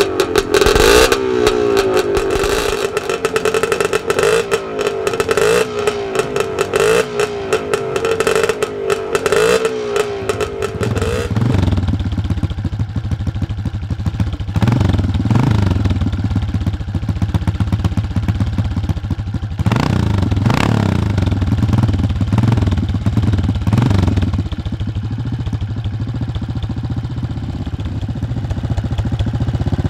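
A classic motocross bike engine running at a fast, wavering idle with the rider on board. About eleven seconds in it gives way to a second classic scrambler's engine idling lower and steadier, revved briefly three times.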